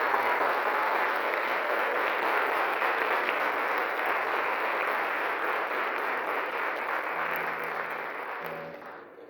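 Audience applauding in a theatre, then dying away near the end.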